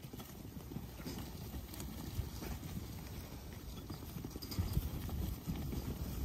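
Hooves of a mob of first-cross ewes walking and shuffling on grass: a dense, irregular patter of soft footfalls that grows louder about four seconds in.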